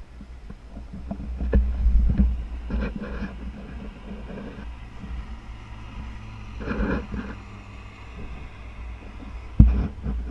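Wind buffeting the microphone of a helmet-mounted GoPro during a parachute descent, a steady rumble with several louder gusts and rustles, and a sharp knock near the end.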